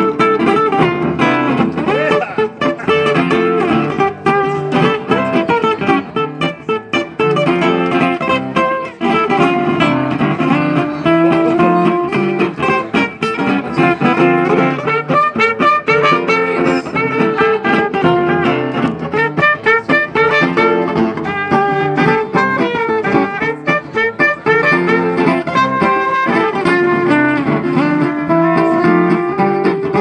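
Acoustic guitar and trumpet playing a swing tune together live, the guitar strumming and picking quick notes under a trumpet melody, without a break.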